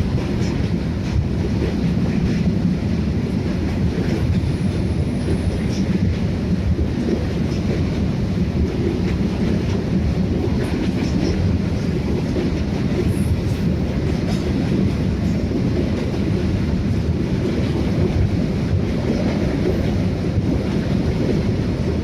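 Freight train's wagons rolling past close by, a steady loud rumble of steel wheels on the rails.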